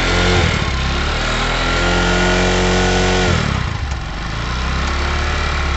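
Bajaj Discover 125's single-cylinder four-stroke engine running. It is revved up with a steadily rising note for about three seconds, then the throttle is released and it drops back to idle. It is being run to check for the engine noise after the tappet clearance was set and a new timing chain tensioner fitted.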